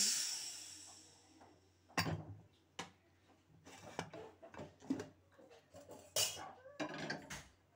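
Aluminium pressure cooker: a loud hiss of leftover steam as the whistle weight is lifted off the vent, fading over a second or so. Then a series of sharp metal clanks and scrapes as the lid is worked loose and lifted off.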